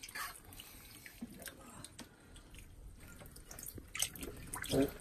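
Small splashes and drips of shallow bathwater as hairless rats move about in a tub, with scattered light clicks and a louder splash near the end.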